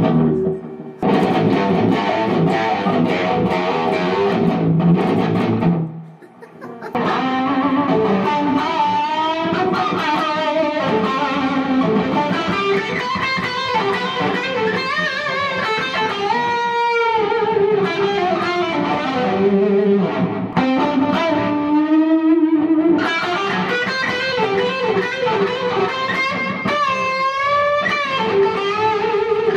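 Down-tuned electric guitar played through distortion: dense, heavy low riffing, a brief break about six seconds in, then lines that bend up and down in pitch.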